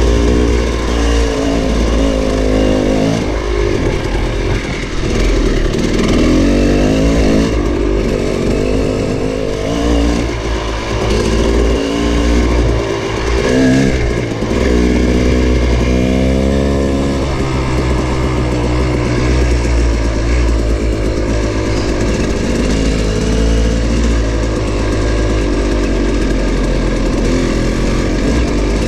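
Dirt bike engine running under way, its revs rising and falling again and again as the throttle opens and closes, over a steady low rumble.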